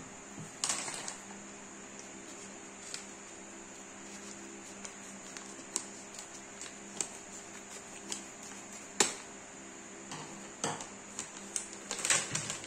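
Plastic packaging pouch being handled and opened: sporadic crinkles and clicks, the sharpest about nine seconds in.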